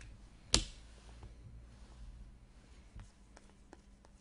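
Trading cards handled and flipped through by hand, with one sharp knock about half a second in and a few faint clicks after it.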